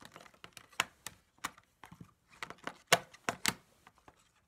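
Hard plastic baseball-card cases being handled close to the microphone: an irregular run of clicks and knocks as the cases tap together and on the table, the two loudest a little after three seconds in.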